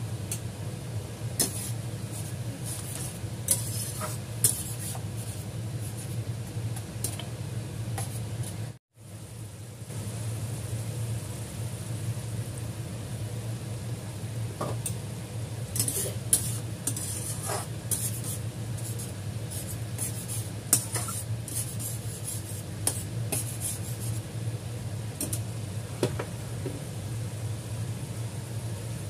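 Meat sauce simmering and sizzling in a stainless steel pan over a steady low hum, with scattered sharp metal clinks against the pan. The sound cuts out for an instant about nine seconds in.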